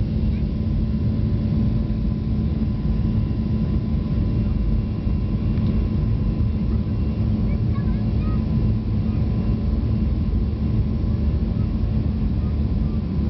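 Steady cabin drone of a Boeing 737's CFM56 turbofan engines at climb power just after takeoff, heard inside the cabin over the wing: a deep even rumble with a constant low hum running through it.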